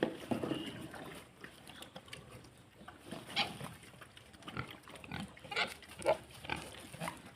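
Domestic pigs grunting in short calls: a cluster in the first second, then single grunts about once a second from about three seconds in.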